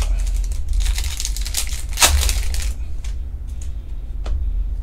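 Trading cards and clear plastic penny sleeves being handled: a crinkling rustle that builds to its loudest about two seconds in, followed by a few light clicks of cards being handled.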